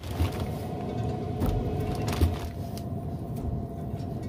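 Steady mechanical hum with a low rumble from the lit smoker, with a few soft clicks and plastic-bag rustles as raw steaks are laid on its metal grate.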